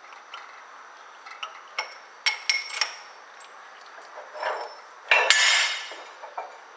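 Metal tools and parts being handled at a shop press: a few sharp, ringing metal clinks about two seconds in, then a louder scraping rattle about five seconds in.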